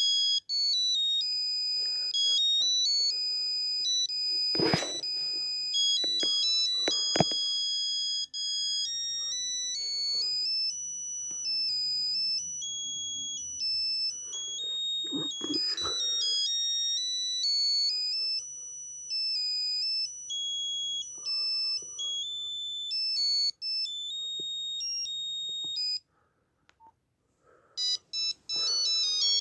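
Nokia 8265i mobile phone playing a monophonic ringtone: a single line of high electronic beeps stepping up and down in pitch as a tune. A few sharp clicks come in the first quarter. The tune stops about 26 seconds in, and after a brief silence another tune begins.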